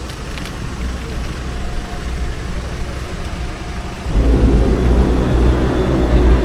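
An engine running with a low rumble, growing much louder about four seconds in.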